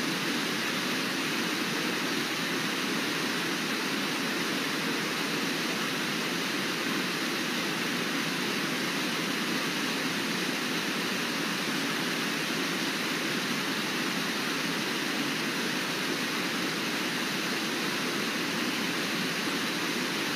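Water pouring over Brooks Falls, a low, wide river waterfall: a steady, even rush of white water that does not change.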